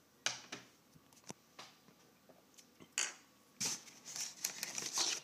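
Cardboard box flaps and packaging being handled: several short scrapes and rustles, then a longer spell of rustling about three and a half seconds in that stops sharply at the end.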